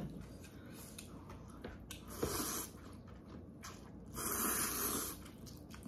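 A person slurping thin Korean wheat noodles: a short slurp about two seconds in and a longer one about four seconds in.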